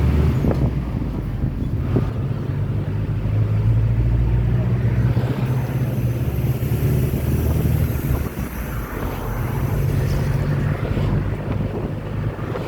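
Moving non-air-conditioned bus: the steady low drone of its engine and road noise, with wind rushing in through the open windows and buffeting the microphone. The drone eases briefly about two-thirds of the way through.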